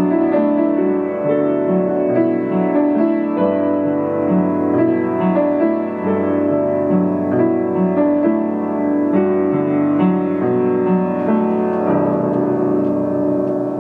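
Upright piano playing a simple beginner-grade piece with a steady run of changing notes. Near the end a chord is held and left to ring.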